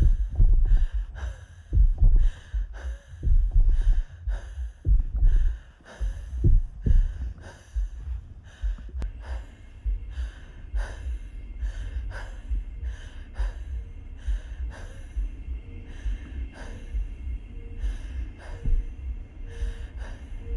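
A woman breathing hard and gasping inside a spacesuit helmet, with heavy low heartbeat-like thumps under the breaths early on. From about halfway through, a faint steady tone and a soft beep repeating about once a second join in.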